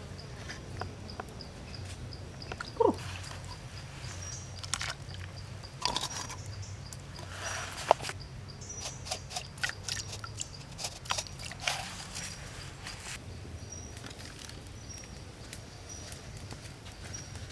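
High-pitched insect chirps repeating at a steady pitch, with scattered clicks and knocks from cookware and ingredients being handled; the sharpest click is about eight seconds in. A short call falls in pitch about three seconds in.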